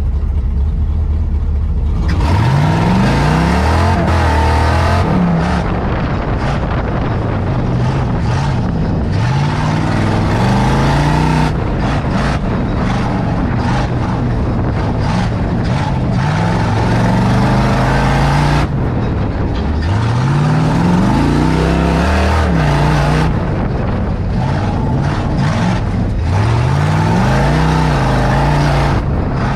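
Off-road competition truck's engine heard from inside its open cab, running steadily for about two seconds, then revved hard again and again as the truck drives the course: the pitch climbs, falls away and climbs again several times.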